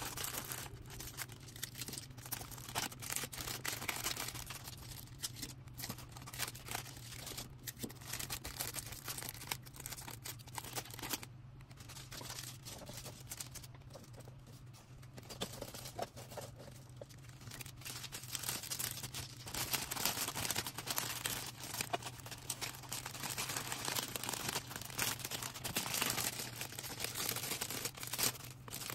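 Orders being packed by hand: packaging crinkling, rustling and tearing, with many small clicks and taps, over a steady low hum.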